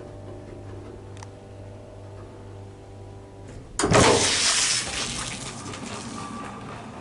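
Hydraulic lift machinery hum with several steady tones that stops about three and a half seconds in. A sudden loud rushing whoosh follows and fades over a couple of seconds.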